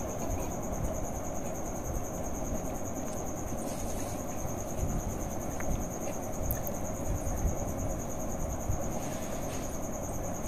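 Steady high-pitched insect trill over a low background rumble.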